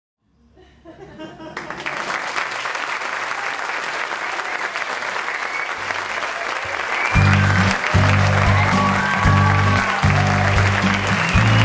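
Theatre audience applauding, fading in over the first second or so. Music with a heavy, pulsing bass line comes in about seven seconds in and plays over the applause.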